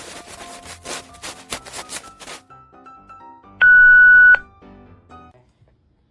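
Background music with a steady beat, thinning to a few sparse notes, then a single loud electronic beep lasting under a second about three and a half seconds in.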